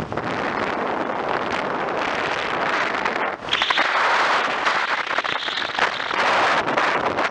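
Steady rushing road and wind noise of a car driving on pavement, heard from inside the car with wind on the microphone. It drops briefly about three seconds in, then returns louder and hissier.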